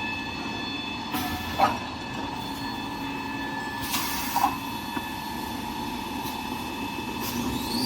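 Small toilet paper machine running: a steady mechanical hum with several constant whine tones, and a short hiss three times, about every three seconds.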